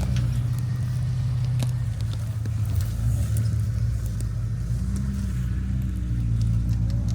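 Off-road vehicle's engine running at low revs, a steady deep drone that rises and falls slightly, with scattered small clicks and knocks.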